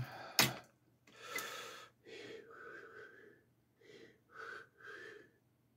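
One sharp snip about half a second in as small wire snips cut through a drone motor's lead wire, then several soft breaths.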